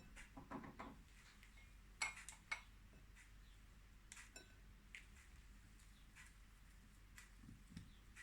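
Faint, scattered taps and clinks of kitchenware on a dish while ingredients are arranged, with two sharper clinks about two seconds in.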